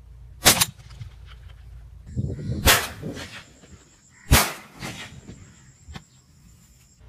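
Sharp shots from a hunting gun. There is a crack about half a second in, a rougher cluster of knocks around two to three seconds, another crack a little after four seconds, and a faint click near six.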